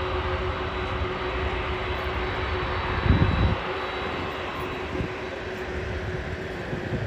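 Steady roar of jet aircraft engines with a faint constant hum, and a brief low thump about three seconds in.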